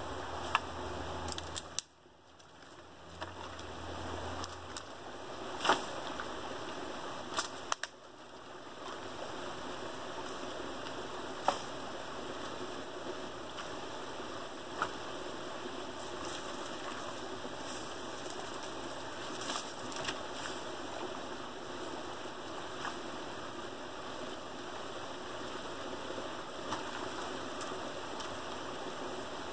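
Creek water running steadily, a constant rushing hiss, with a dozen or so sharp clicks scattered through it. The rush drops out briefly about two seconds in and again about eight seconds in.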